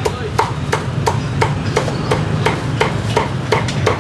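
Cleaver chopping crispy roast pork (heo quay) on a chopping block in a steady rhythm of about three chops a second, with a low street-traffic rumble underneath.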